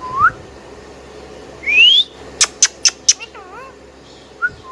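Indian ringneck parakeet whistling and chirping. A short rising whistle comes at the start, then a loud upward-sweeping whistle about two seconds in, four quick sharp chirps, a warbling note, and another short rising whistle near the end.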